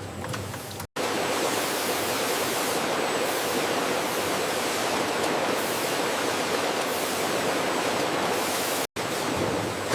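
A steady rushing hiss, with no rhythm or tone in it, that starts abruptly about a second in and breaks off just as abruptly about a second before the end.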